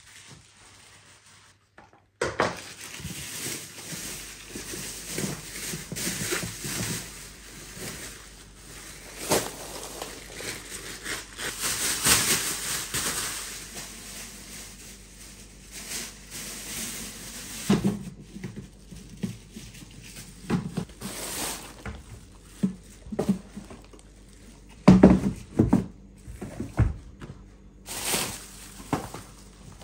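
Plastic bin liner rustling and crinkling as a full rubbish bag is pulled out of a kitchen bin and handled, starting abruptly about two seconds in. A few louder knocks come about three-quarters of the way through.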